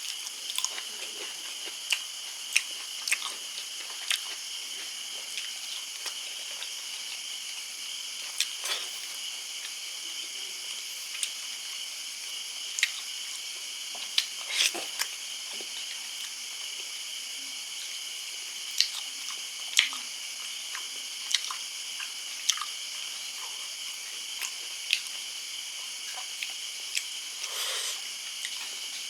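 A person chewing and biting while eating a fish curry, with irregular wet mouth clicks and smacks. A steady high-pitched hiss runs underneath.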